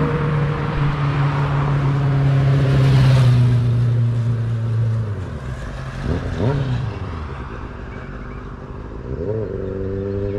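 Kawasaki Ninja 600 sportbike's inline-four engine running hard, loudest about three seconds in, then the revs drop at about five seconds, followed by two short rev blips, one just past the middle and one near the end.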